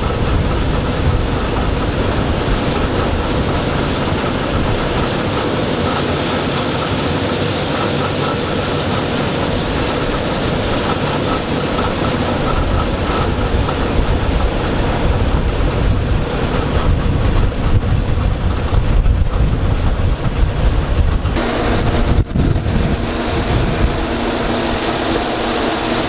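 1977 Gleaner M2 combine running, with strong wind rumbling on the microphone. About 21 seconds in the sound cuts to a steadier machine drone with a clear hum: a vintage Allis Chalmers tractor running beside a gravity wagon and grain auger.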